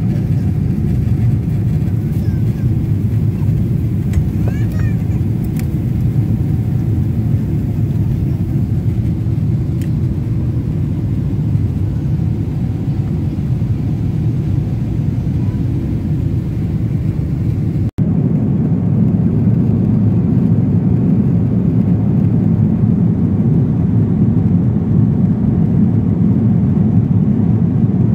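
Steady jet-airliner cabin noise in cruise: a loud, even low rushing of air and engines, with a brief dropout about two-thirds of the way through.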